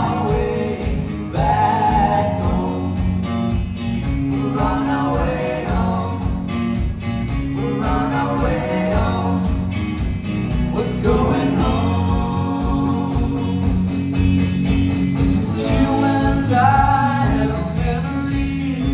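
Live rock band playing: electric guitars, bass guitar and drums with sung vocals, the singing coming in phrases over a steady beat.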